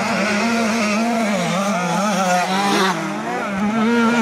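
Motocross dirt-bike engines revving, their pitch rising and falling continuously as the riders work the throttle, with more than one bike running at once.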